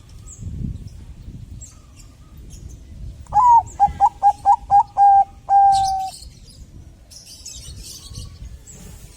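Zebra dove (perkutut, Bangkok type) singing one cooing phrase about three seconds in: an opening coo, a quick run of short clipped coos, and a long held final note. Faint high chirps come and go around it.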